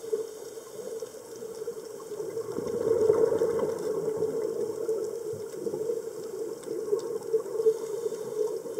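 Underwater scuba ambience heard through a camera housing: a steady watery rush with the gurgle of regulator exhaust bubbles, swelling louder about two and a half seconds in as a breath is exhaled.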